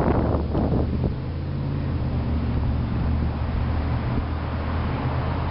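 A steady low motor hum, like an engine or machine running at a constant speed. Wind buffets the microphone during the first second.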